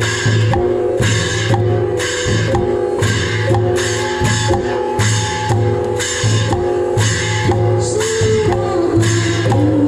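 Music with a steady drum beat of about two hits a second, under sustained melody lines and a constant bass.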